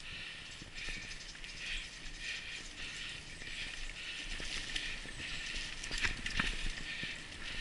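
Mountain bike ridden over a leaf-covered dirt trail: the freewheel and drivetrain ratcheting and rattling, with crunchy riding noise in a regular pulse about one and a half times a second. There are a few sharp knocks about six seconds in.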